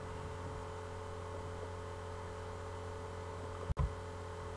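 Steady low electrical hum and hiss from the recording chain with no speech. There is a brief audio dropout and a soft low bump about three and a half seconds in, at an edit.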